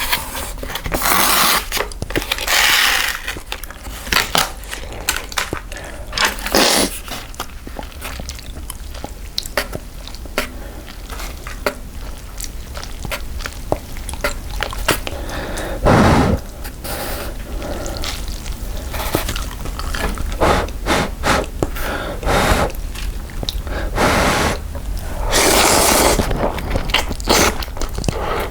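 Close-miked eating of instant cup ramen: noodles slurped in several bursts, a second or more each, between wet chewing and frequent mouth clicks.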